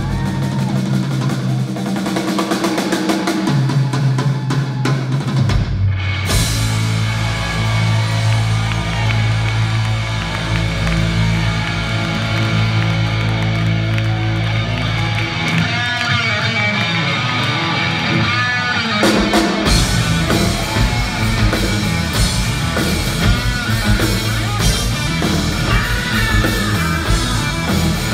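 Live rock band playing an instrumental passage: electric guitar over a drum kit and bass, amplified through the theatre PA. About six seconds in the music breaks and a new section begins. Near two-thirds through, the bottom end drops out for a few seconds before the full band crashes back in.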